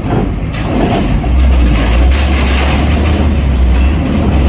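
Heavy truck engine running with a deep, steady low rumble that grows louder about a second in, as a truck hauling train wagons drives aboard.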